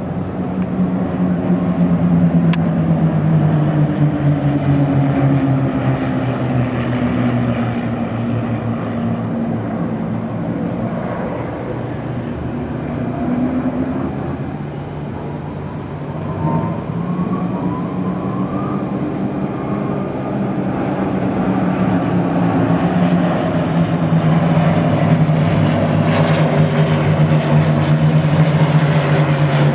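Propeller aircraft flying in formation overhead, a steady engine drone whose pitch slides down and back up as the planes pass, loudest near the end.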